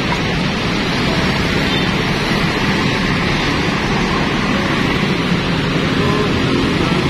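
Steady city road traffic noise: motorbikes and cars passing.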